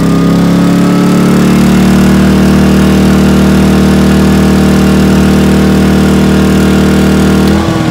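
Westinghouse iGen2500 inverter generator's small four-stroke engine running at high speed under a 1500-watt heat gun load, a steady loud engine note with the heat gun's blower hissing. Near the end the engine note drops suddenly in pitch and level.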